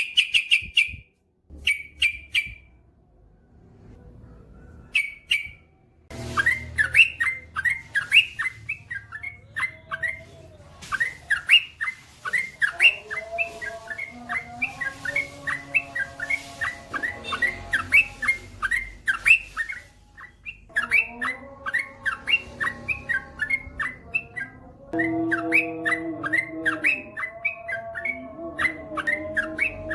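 Yellow-vented bulbul (trucukan) song: a few short chirps, then from about six seconds in a long, rapid run of chirping notes, about four or five a second, broken by two brief pauses.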